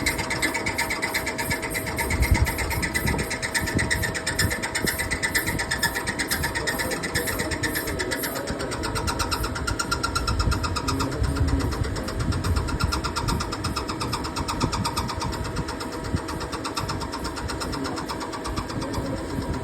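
A machine running steadily, with a constant hum and a fast, even rattle; a higher tone in it shifts lower about eight seconds in.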